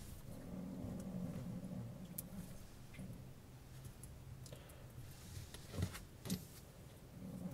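Faint handling sounds as rubber O-rings are worked onto the metal parts of a Rose V2-S: a few small scattered clicks and taps, the sharpest two close together near the end, over a low steady hum.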